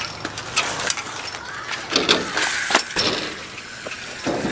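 BMX bike ridden on a skatepark, with a run of sharp clicks and knocks from the bike and its tyres on the riding surface.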